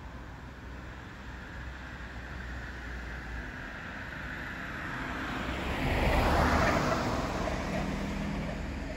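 A road vehicle passing close by: its noise builds up over several seconds, peaks about six seconds in, then fades away.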